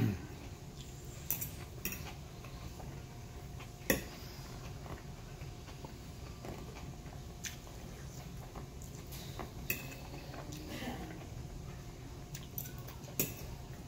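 Metal fork clinking and scraping against a plate while eating, a sharp clink every few seconds, loudest about four seconds in.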